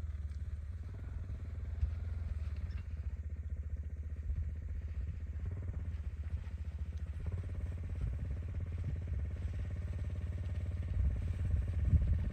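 1992 Honda Fourtrax ATV's single-cylinder engine running steadily at low speed while pushing a snow plow blade. It grows louder and more uneven near the end.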